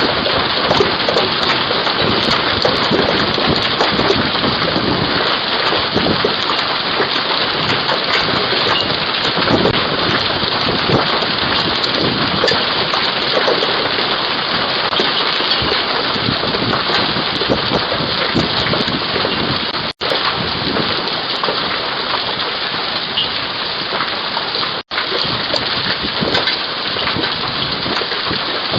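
Hail, quarter to ping-pong ball sized, and heavy rain pelting down in a dense, steady clatter of impacts, heard through a Ring doorbell's microphone. The sound drops out for an instant twice in the second half.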